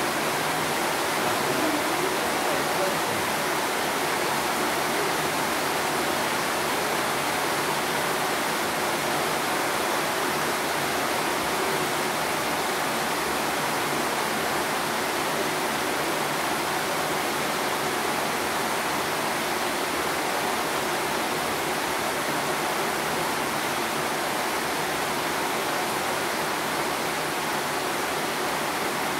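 Steady rain hissing, an even rushing noise that does not change.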